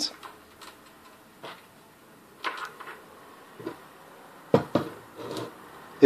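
Handling noise from small metal and plastic aviation-connector parts and a cordless drill: about half a dozen separate light clicks and knocks, with quiet between them.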